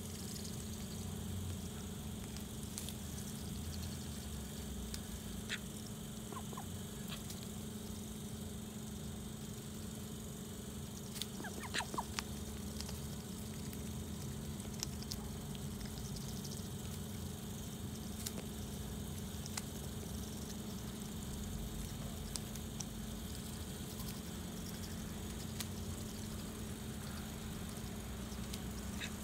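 Call ducks dabbling and pecking with their bills in wet soil and clover, making scattered soft clicks and patters, with a short cluster of louder sounds about twelve seconds in. A steady low hum runs under it.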